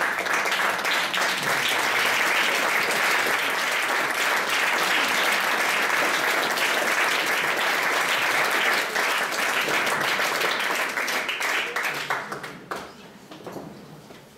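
Audience applauding in a small hall, steady dense clapping that thins out and dies away in the last couple of seconds.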